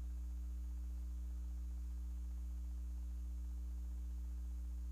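Steady low electrical mains hum, with fainter steady tones above it and nothing else.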